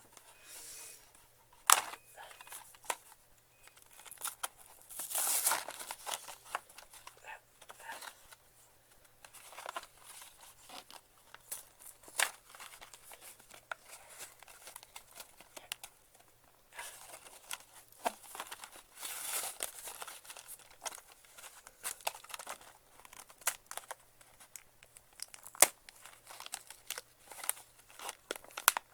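Cardboard toy box and plastic packaging being worked open by hand: irregular tearing and crinkling, with sharp clicks and snaps scattered throughout.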